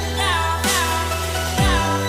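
Electronic dance music: a synth melody over a heavy bass beat, with deep falling bass hits at the start and again about a second and a half in.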